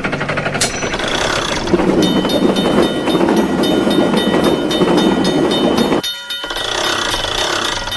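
A train running past, a fast regular clatter with a few steady ringing tones over it; it drops out briefly a little after six seconds, returns, and cuts off at the end.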